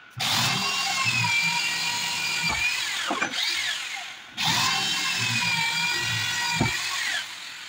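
Corded electric hand drill boring into a wooden door, run in two bursts of about three seconds with a short pause between them; the motor's whine sags a little under load and falls in pitch as it winds down at the end of each burst.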